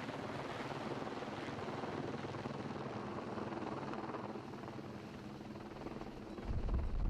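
Helicopter running steadily, its rotor making an even low pulsing under engine noise. A louder low rumble comes in near the end.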